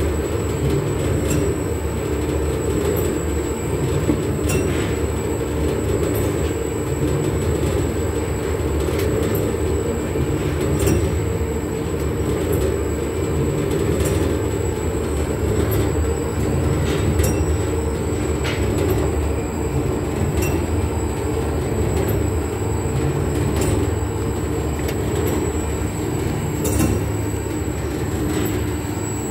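Industrial xanthan gum mixer running steadily, its stainless steel cooling arms stirring thick paste: a constant low machine drone with occasional faint ticks.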